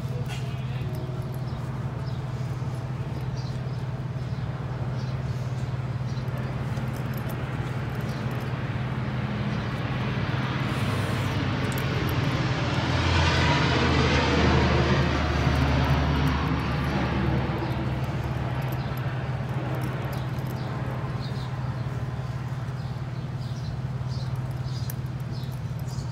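An aircraft passing overhead: a broad engine noise that swells over several seconds to its loudest a little past midway, then fades, over a steady low hum.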